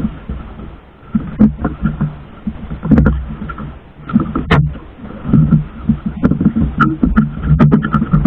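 Water slapping and sloshing against the hull of a small outrigger fishing boat, broken by several sharp knocks of wood and gear against the boat as the fisherman handles rope and a wooden pole.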